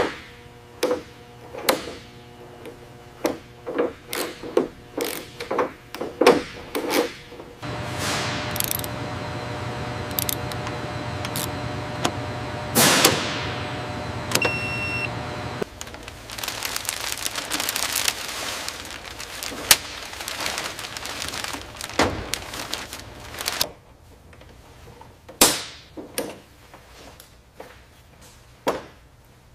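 Workshop assembly sounds: irregular metallic clicks and clanks from hand tools working on fittings, over a low steady hum. A denser stretch of mechanical noise runs through the middle with a brief whoosh, and a short electronic beep sounds about halfway through.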